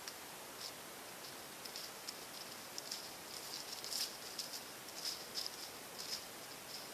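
Faint, irregular rustling with small crackling ticks, several a second at their busiest, over a steady hiss.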